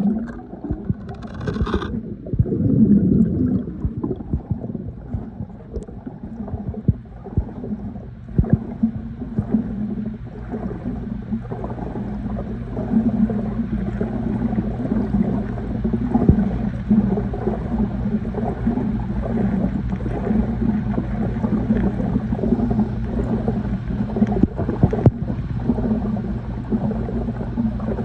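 Water in a spa heard underwater: a steady low hum with gurgling and irregular crackles running through it.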